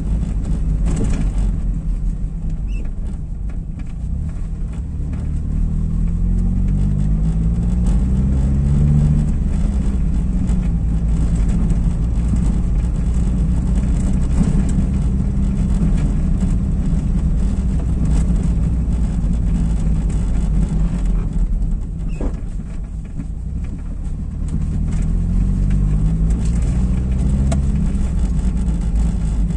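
Car driving, heard from inside the cabin: a steady low engine and tyre rumble over brick paving, with the engine note rising as the car accelerates, twice, about six seconds in and again near the end.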